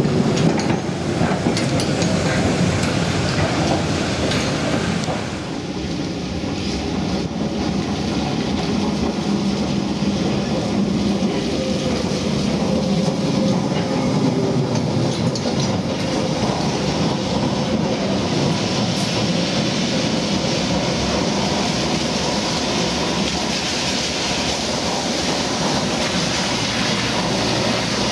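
Vintage open-sided Santa Teresa electric tram running past on its rails: a steady running noise of wheels and running gear.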